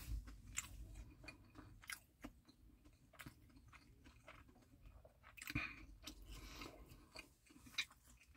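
A person chewing a mouthful of burger with the mouth closed: faint, irregular small clicks and smacks.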